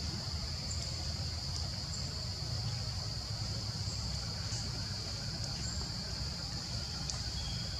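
Steady high-pitched insect chorus, crickets or cicadas, over a low rumble.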